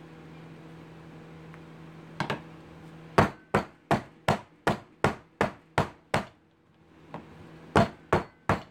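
Wooden soap loaf mold with a silicone liner knocked down on a wooden counter again and again to settle the freshly packed hot-process soap. A double knock comes about two seconds in, then a run of about nine even knocks at roughly three a second, a short pause, and three more knocks near the end.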